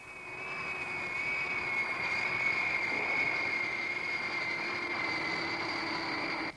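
Animated sound effect of a jet airliner's engines: a steady high whine over a rushing roar, fading in at the start and sagging slightly in pitch, then cutting off abruptly.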